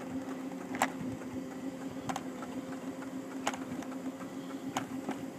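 Electric mobility scooter running along a path: a steady low motor hum with a sharp click about every second and a third.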